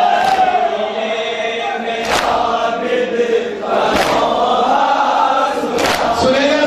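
A noha chanted by a group of men, with the mourners' matam: unison chest-beating slaps that land about every two seconds, four in all.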